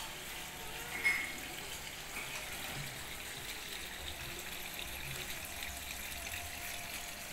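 Steady running water, with a short click about a second in.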